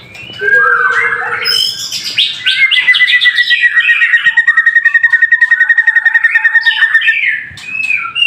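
White-rumped shama (murai batu) singing loudly: varied whistled phrases, with a long rapid trill of repeated notes through the middle.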